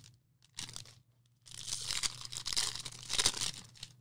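Trading-card pack wrappers being torn open and crinkled: a short rustle, then about two seconds of continuous tearing and crinkling.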